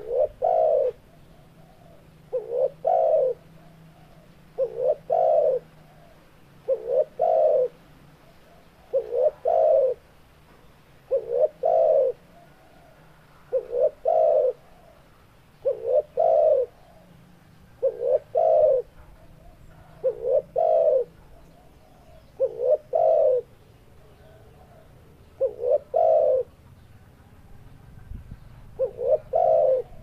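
Male spotted dove (tekukur) repeating its breeding-season cooing call, about one phrase every two seconds, each phrase a short coo run into a longer one.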